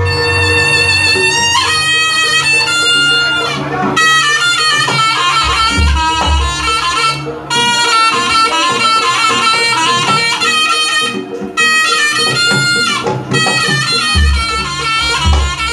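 Jaranan gamelan accompaniment led by a loud, nasal reed shawm (slompret) playing a wavering melody in short phrases, over a steady drone and two deep booms in the bass.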